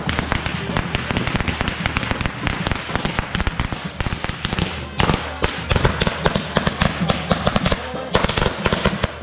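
A long string of firecrackers going off in rapid, irregular cracks without a break, set off for the procession. Music and voices carry on underneath.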